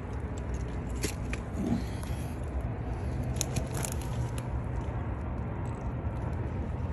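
Rustling and crackling of dry marsh brush with a few sharp clicks as a just-landed striped bass is dragged up through it, over a steady low rumble.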